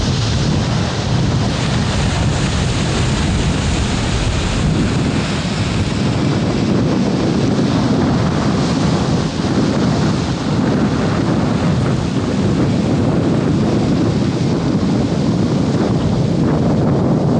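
Wind buffeting the microphone: a loud, steady, rumbling rush with no pauses.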